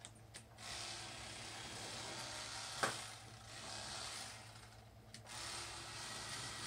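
Electric fillet knife running as it cuts into a flathead catfish, with a steady motor hum under the buzz of the blades. It stops briefly about five seconds in and starts again, and there is one sharp click about three seconds in.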